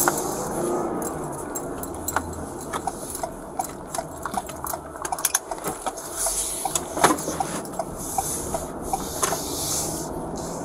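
Inside a moving Ford patrol vehicle: a steady low engine and road hum, with scattered sharp clicks and rustling close to the microphone as the body-worn camera rubs against the driver's arm and the steering wheel.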